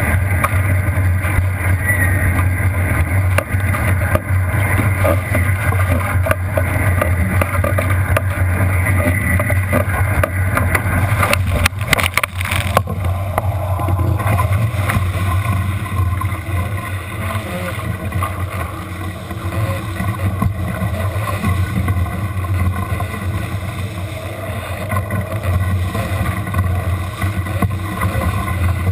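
Wind and water rushing over a camera mounted on an International Moth sailing dinghy sailing fast downwind, with a steady low rumble of buffeting and spray. About twelve seconds in there is a short flurry of sharp hits.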